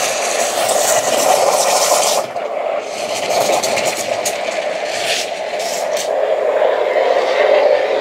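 Steam wand of a commercial stainless-steel espresso coffee maker blowing steam into a jug of milk, sugar and coffee to froth it: a steady loud hiss and rumble. The sharper part of the hiss drops back about two seconds in.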